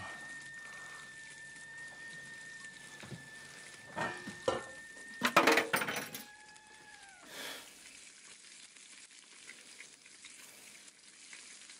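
Kitchen dishes and cookware being handled at a counter: a few clicks, then a short burst of clinking and clattering about five seconds in, the loudest moment, with a faint steady high whine that stops just before it.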